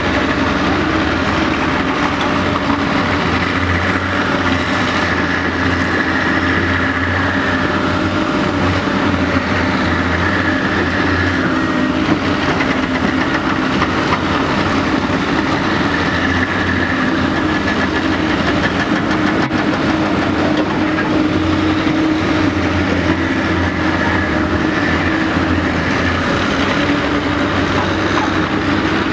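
Caterpillar 385BL ME excavator working: its diesel engine runs steadily, with a higher whine that comes and goes several times as the boom and bucket are worked.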